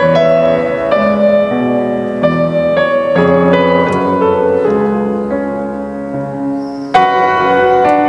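Piano music: notes and chords struck one after another, each ringing and fading, with a louder chord struck about seven seconds in.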